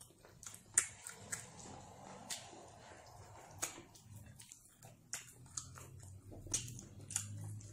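Close-up chewing of soft, sticky carrot fufu with slimy ogbono soup: scattered wet mouth clicks and lip smacks, over a faint low hum.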